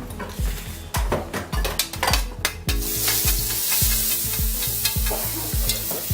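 Utensil clinking against a pan as a sauce is stirred, then a sizzling hiss that starts a little under halfway in and carries on. Background music with a steady beat plays underneath.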